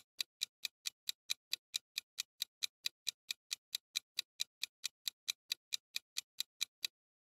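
Clock-tick sound effect of a countdown timer, a fast, even ticking of about five ticks a second that stops shortly before the end.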